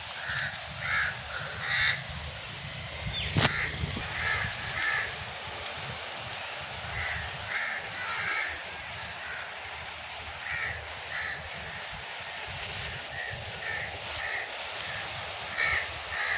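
Birds calling outdoors: short calls repeated about a dozen times, often in pairs, over a steady background hiss and a low rumble of breeze. A single sharp click about three and a half seconds in.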